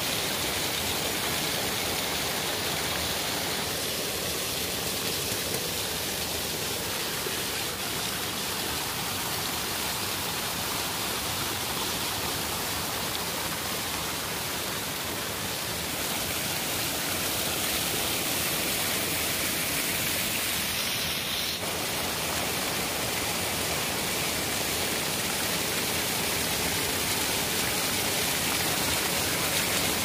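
Steady, even rush of flowing water, like a waterfall or stream, growing slightly louder about halfway through.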